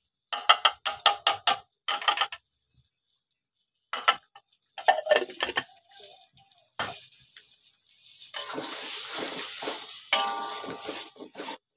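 A glass blender jar knocked several times in quick succession against an aluminium wok to empty out spice paste. Then a metal spoon clanks and scrapes in the wok while the paste sizzles in a little oil, and the wok rings under the spoon near the end.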